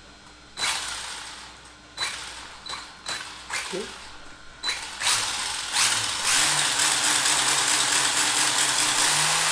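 Brushless motor of an HSP Flying Fish 1/10 RC touring car on a bench test: a few clicks with brief high beeps, then from about five seconds in the motor spins the gears and wheels with a steady whirring whose pitch steps up a little twice.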